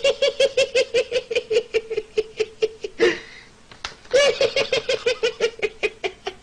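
A person laughing hard: a rapid, high-pitched run of even 'ha' pulses at about six a second, a gasping breath about three seconds in, then another long run of the same laugh.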